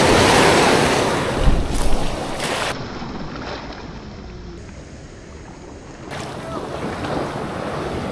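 Rushing water and wind noise, with wind buffeting the microphone. It is loudest in the first couple of seconds, with two sharp knocks about a second and a half in, then sinks to a softer rush before swelling again near the end.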